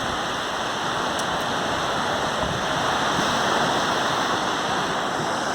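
Ocean surf washing on the beach, a steady rushing noise that swells slightly about three seconds in.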